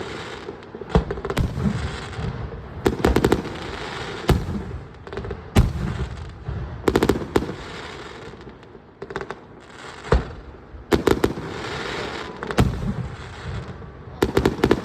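Aerial fireworks bursting: a string of sharp bangs at irregular intervals, several of them clusters of rapid cracks, each followed by a rolling echo.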